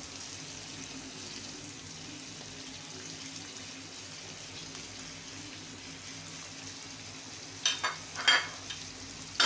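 Onion and capsicum pieces sizzling gently in oil in a wok over a low flame, a steady soft frying hiss. Near the end come a couple of light knocks.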